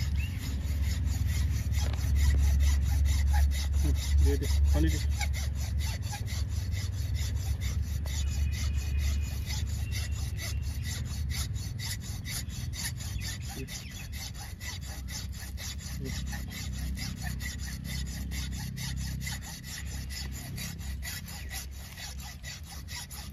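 Wire saw cutting through the base of a cow's horn in rapid, even back-and-forth strokes, with a low rumble underneath in the first few seconds.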